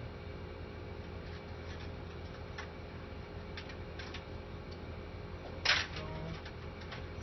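Light clicks and taps of a latch being handled and fitted on a wheelchair frame, with one louder, short scraping knock a little before six seconds in.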